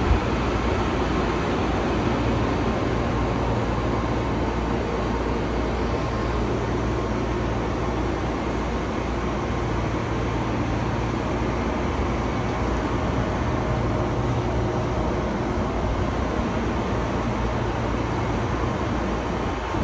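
Amtrak ACS-64 electric locomotive standing at the platform, its cooling blowers and fans running steadily with a low hum under rushing air.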